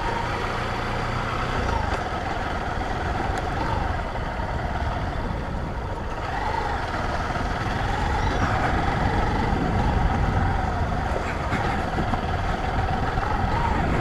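Vehicle engine running steadily while driving, its pitch wavering slightly with speed, over a continuous low road rumble.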